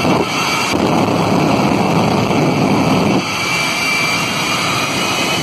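Jet engine of a jet-powered school bus running with a loud blast while flames shoot from its exhaust, dropping back suddenly about three seconds in to a quieter, steady whine.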